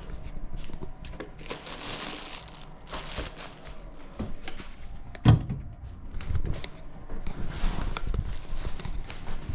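Irregular rustling, crinkling and handling noise, like things being moved about, with one sharp knock about five seconds in.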